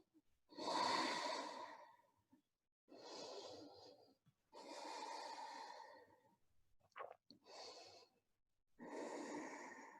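A woman breathing slowly and audibly, in and out, in long airy breaths with short pauses between them. There are about five breaths, and the first is the loudest.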